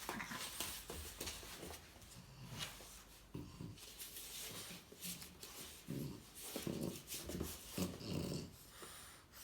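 Dogs play-fighting: short low growls and grunts every second or so, over scuffling and clicks.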